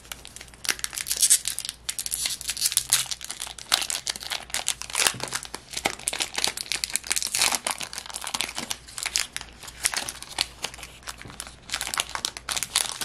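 Foil wrapper of a Pokémon trading card booster pack crinkling and crackling as it is handled and torn open along its seam, in a dense run of irregular crackles.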